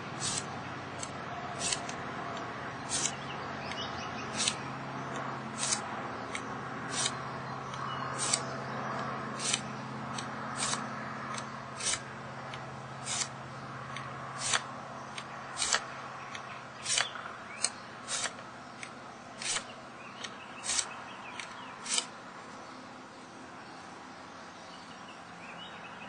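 A steel file rasping across the bevel of a twin-blade broadhead in steady, even strokes, about one every 1.3 seconds, grinding the bevel wide to raise a burr. The strokes stop near the end.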